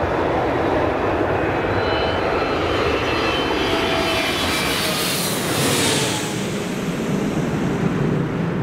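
Twin-engine jet airliner passing low overhead with its landing gear down: a steady jet roar with faint engine whine tones that drop slightly in pitch, the high hiss peaking about five to six seconds in as it passes over.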